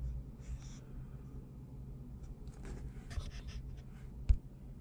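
Faint scratchy rustling and small clicks over a low steady hum, with one sharp click about four seconds in.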